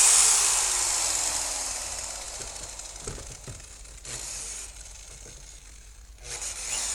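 Electric car polisher buffing the paint on a car's side panel, a hissing buzz that starts loud and fades over about two seconds as the machine winds down, then picks up again quietly later on.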